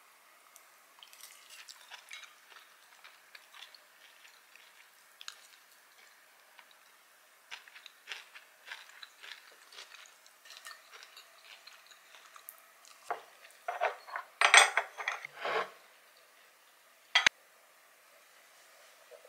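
Ceramic dishes and a metal spoon clinking as tableware is gathered and stacked. Scattered light clinks at first, then a burst of louder clattering about two-thirds of the way in and one sharp knock near the end.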